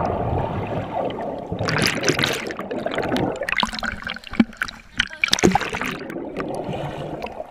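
Muffled rush of churning water and bubbles from an action camera held under the pool surface, right after a jump into the water. It is broken by brief, brighter splashing as the camera bobs above the surface, about two seconds in and again around five and a half seconds.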